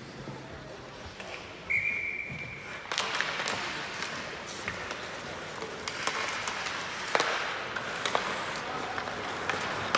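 Hockey referee's whistle blown once, a steady shrill tone lasting about a second. It is followed by rink noise: skates scraping the ice, sharp clicks of sticks and puck, and voices.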